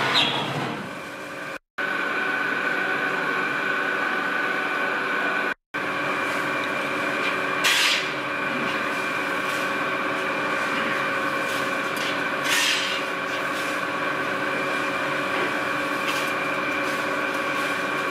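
Horizontal pneumatic wine press running, a steady mechanical hum and whine, as it discharges pressed grape pomace into a trailer. Two brief hissing rushes come about 8 and 12.5 seconds in.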